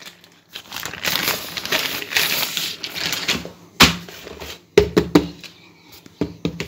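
A plastic courier bag crinkling and rustling as it is handled and opened, followed by several sharp knocks and clicks as a small cardboard box is pulled out and handled.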